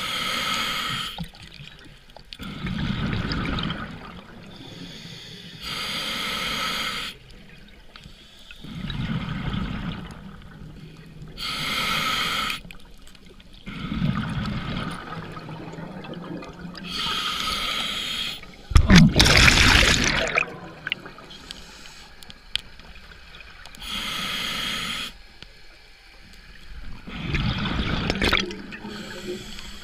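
Scuba diver breathing through a regulator underwater: a hissing inhalation through the demand valve alternates with a low rumble of exhaled bubbles, in a steady cycle of about five to six seconds. One exhalation, about two-thirds through, is louder and longer than the rest.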